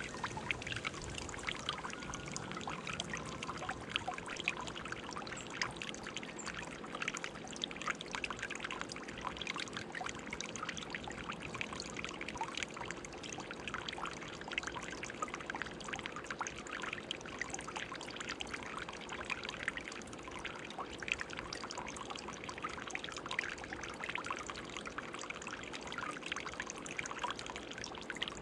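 Water from a garden birdbath fountain pouring and trickling steadily, with a constant patter of small splashes.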